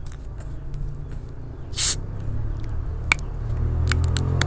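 A small plastic bottle of Coca-Cola being twisted open: a short, sharp hiss of escaping carbonation not quite two seconds in, then a few small clicks from the cap.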